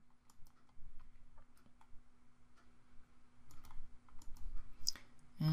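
Faint computer mouse clicks at irregular spacing, pressing the keys of an on-screen scientific calculator emulator one after another.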